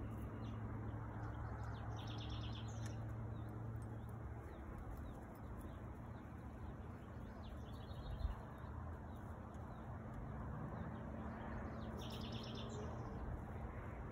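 Small birds chirping in short high trills, about two seconds in, again around six seconds and near the end, over a steady outdoor background hiss and low hum. A single thump a little after eight seconds.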